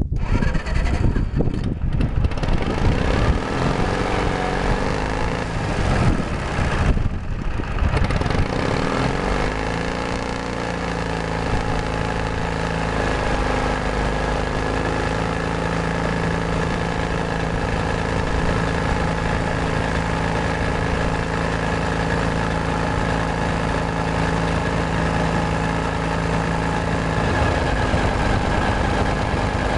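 Mid-1950s Caterpillar D315 diesel engine starting after sitting about 15 years: a rough, uneven start for the first several seconds, then it settles into steady running from about nine seconds in.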